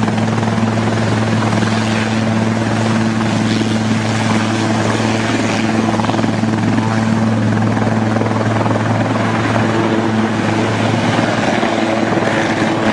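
Air-ambulance helicopter hovering low and close, its rotor and engines running steadily: a deep, even hum under a loud rush of noise.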